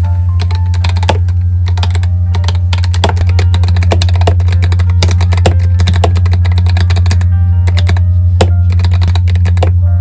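Fast typing on a Varmilo mechanical keyboard with EC Sakura switches: a dense, irregular run of keystroke clacks. Background music with a steady low bass tone plays under it.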